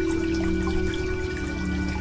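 Slow new-age meditation music of long held notes that shift pitch every second or so, layered over the sound of falling rain and scattered drips.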